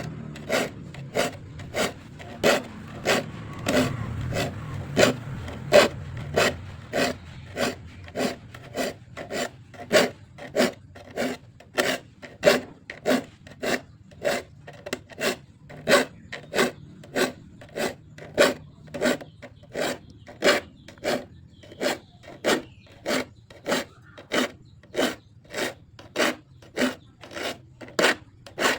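A file rasping across the teeth of a hand saw in steady, even strokes, about two a second: the saw is being sharpened.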